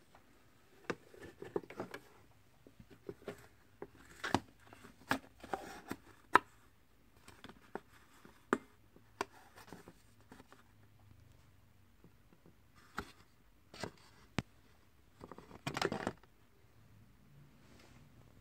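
Plastic housing of an electric multi-cooker being handled and lifted apart: irregular clicks, knocks and short rubbing sounds of plastic parts, with a denser burst of rubbing near the end.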